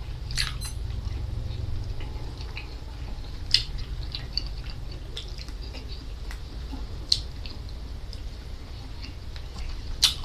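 Close-up eating sounds: wet chewing with sharp crackly clicks and snaps while eating raw seaweed and grilled squid by hand, the loudest snaps about three and a half, seven and ten seconds in, over a steady low hum.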